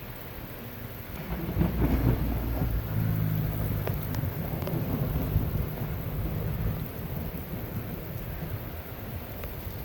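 A clap of thunder rumbling over steady rain: it breaks about a second in, peaks soon after, and rolls on for several seconds before fading.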